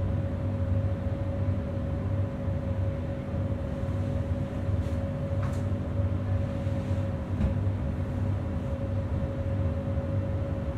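Rodalies electric commuter train running: a steady low rumble under a constant hum, with a few faint clicks about halfway through.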